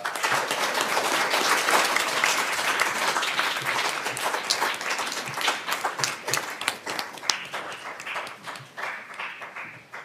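Audience applauding: dense clapping that thins to scattered claps in the second half and dies away near the end.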